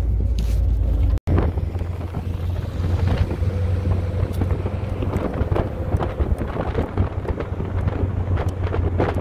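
Wind buffeting the microphone: a heavy, rough low rumble with a faint steady hum under it. The sound cuts out for an instant about a second in.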